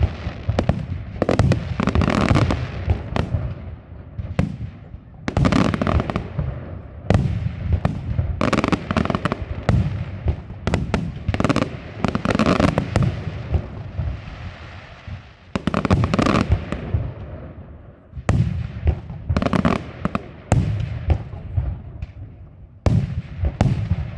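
Aerial fireworks display: shells bursting in rapid volleys of sharp bangs and crackle, the barrages coming in clusters every few seconds with brief lulls of echoing rumble between.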